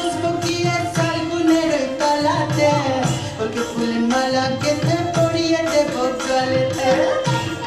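Folk-style song: voices singing a melody over a steady, quick hand-drum beat.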